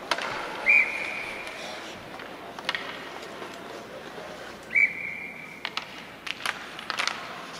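Ice hockey referee's whistle blown twice, each a steady shrill blast of about a second, stopping play for a faceoff. Sharp clacks of sticks and puck on the ice come in between, more of them near the end.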